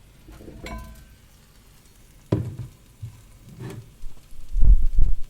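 A series of knocks and clinks from things being handled. There is a short ringing clink about a second in, a sharper knock a little after two seconds, and heavy low thumps, the loudest of all, near the end.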